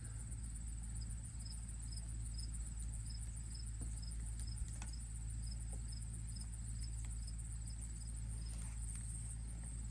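Insect chirping outdoors: a short, high chirp repeating at an even pace, a bit more than twice a second, over a steady high buzz and a low rumble.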